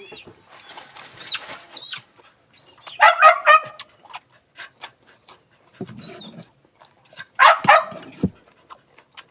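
A dog barking in two short bouts about four seconds apart, with faint knocks in between.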